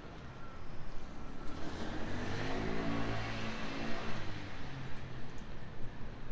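A vehicle passing by at night: a pitched engine hum with hiss that swells over about two seconds, peaks around the middle and eases off again.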